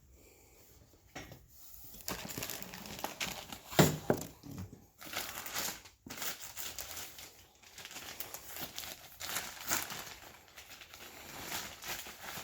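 Plastic or paper packaging crinkling and rustling as it is handled and pulled off, with a sharp knock about four seconds in.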